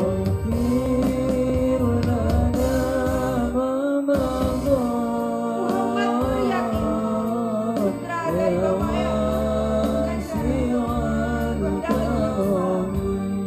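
Male students singing a slow, ornamented devotional song, the melody sliding and bending, over a steady electronic keyboard accompaniment.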